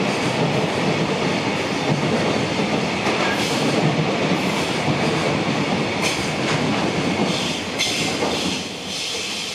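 Container wagons of a freight train rolling past with a steady rumble, the wheels clacking over the rail joints. The noise drops off near the end as the last wagon passes.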